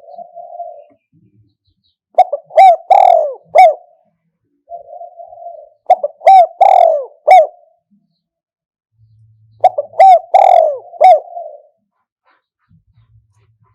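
Spotted dove cooing: three phrases about four seconds apart, each a quick run of three or four coo notes followed by a softer, rougher trailing note.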